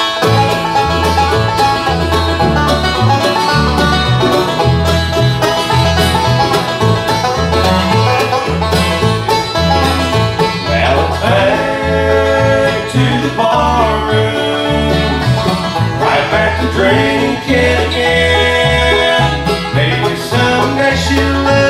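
Bluegrass band playing live: banjo, mandolin, acoustic guitar, fiddle and upright bass, the bass stepping between notes on a steady beat under quick banjo picking. A few sliding notes rise and fall around the middle.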